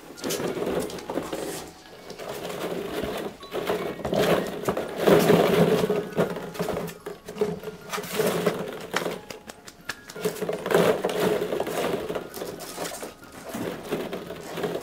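Hollow plastic ball-pit balls clattering and rattling against each other and the plastic tub as Havanese puppies scramble through them, in uneven swells of busy clicking.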